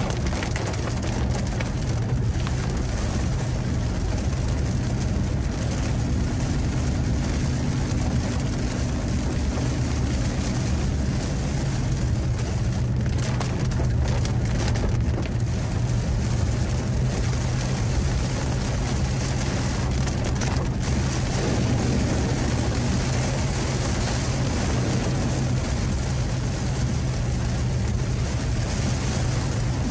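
Car driving on a wet road in the rain: a steady low drone of engine and tyres with an even hiss of water and rain over it.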